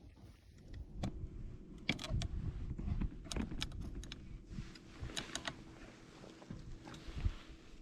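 A series of irregular small clicks and rustles over a faint steady hum.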